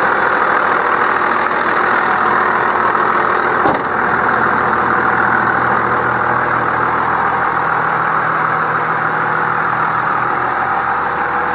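Second-generation Dodge Ram's Cummins 5.9 L inline-six turbo diesel idling steadily, freshly started, and not sounding good. A single sharp click comes a little under four seconds in.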